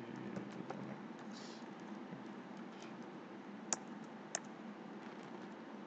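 Computer keyboard typing: scattered keystroke clicks, two of them louder near the middle, over a steady low hum.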